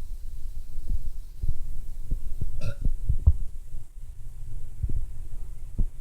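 A woman's soda burp: one short pitched belch about two and a half seconds in, over a steady low rumble with scattered soft thumps.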